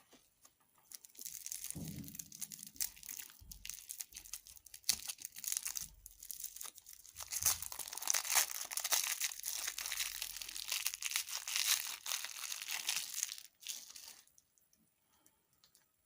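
Crinkly dessert packaging being handled and torn open, a dense run of crinkling and tearing that stops about two seconds before the end.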